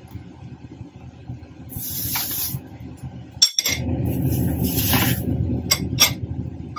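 A metal spoon is set down with a sharp clink on a ceramic plate after scooping avocado. A low rumble underneath grows louder through the second half.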